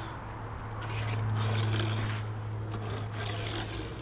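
Small toy truck's wheels rolling and scraping along a plastic toy track in several short runs, over a steady low hum.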